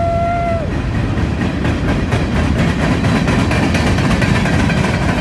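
Freight train of boxcars and flatcars rolling past close by: a steady rumble of steel wheels on rail with a dense clatter of wheel clicks. A short pitched call rises, holds and falls in the first second.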